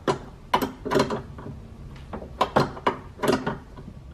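Ratchet tightening a 10 mm bolt on a car door's window-glass clamp: short metal clicking strokes in two irregular clusters, with a lull about halfway through.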